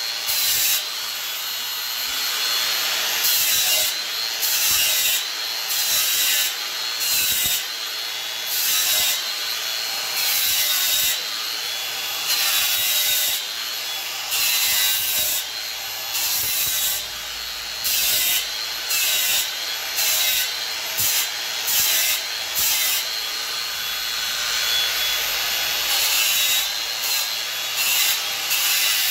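Angle grinder with an 80-grit sanding disc sanding the hollow of an ash bowl blank. A steady, slightly wavering motor whine runs under it, with louder scratchy surges about once a second as the disc is pressed into the wood.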